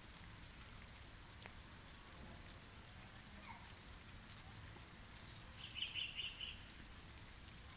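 Faint, steady rainfall with scattered small drop ticks. About three-quarters of the way through, a bird gives a brief run of high chirps, the loudest sound.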